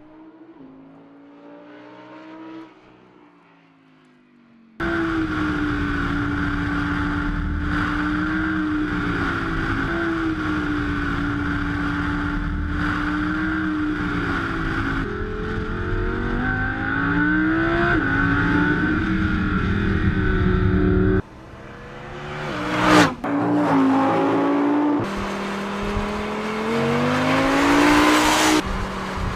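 2016 Audi R8 V10 plus, its naturally aspirated 5.2-litre V10 engine under way. A faint approach fades out, then comes a long stretch of loud engine note with the revs rising and falling. After a cut, the car makes a fast pass-by about 23 seconds in, and the engine sounds loud again near the end.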